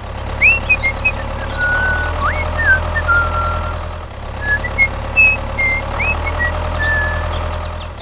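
Tractor engine sound effect idling steadily with a low chugging hum, dipping briefly about halfway through, with high whistled chirps of birdsong over it.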